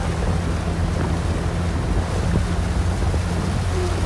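Wind buffeting the microphone in a steady low rumble, over a constant low hum.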